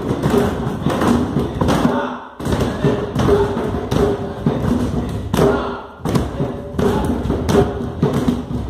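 Repeated heavy thumps and taps in a loose rhythm, roughly one to two a second, during Chhau dance practice.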